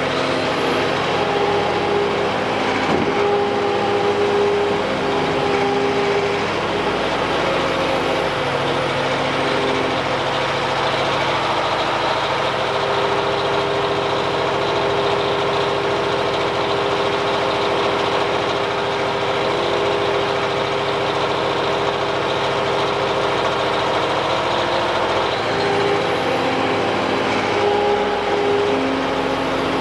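Liebherr R934 crawler excavator's diesel engine running steadily under hydraulic load as the boom and tilt-rotator bucket work. A thin high whine rises and falls over several seconds, once near the start and again near the end.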